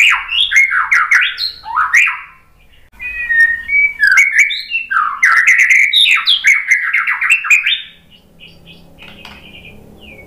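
White-rumped shama singing a loud, fast, varied song of rapid whistled sweeps mixed with harsh notes. It breaks off briefly about two seconds in, and about eight seconds in drops to a few faint short notes.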